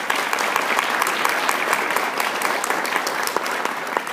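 Audience applauding, beginning to die down near the end.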